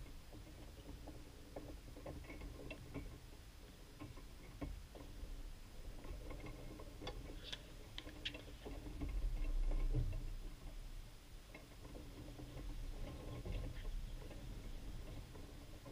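Tennis ball strikes and bounces on a hard court, heard faint from a distance, with scattered light taps throughout and a string of sharp clicks about seven to eight and a half seconds in. A low rumble of wind on the microphone swells briefly about nine to ten seconds in.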